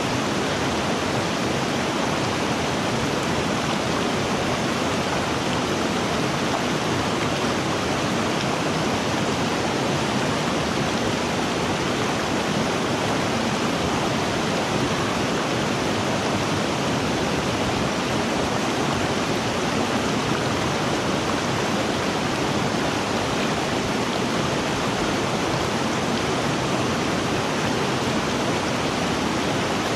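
River water rushing in an even, unbroken stream with no changes.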